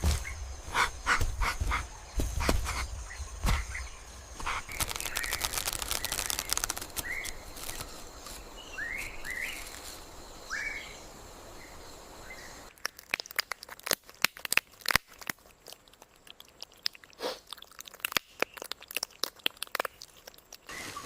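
Irregular crunching and cracking of dry forest-floor litter. The crunching is dense at first, breaks for a stretch of steady hiss with a few short bird chirps in the middle, then returns as scattered sharp cracks.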